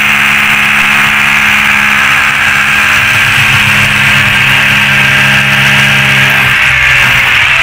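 Electric masonry drill with a long bit boring into a ceramic-tiled wall, its motor running at a steady pitch. It stops about a second before the end.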